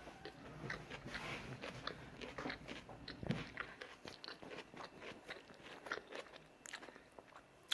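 A person chewing a mouthful of stir-fried udon noodles with tofu and vegetables close to the microphone: irregular wet mouth clicks and small crunches, with a slightly louder gulp-like sound a little over three seconds in.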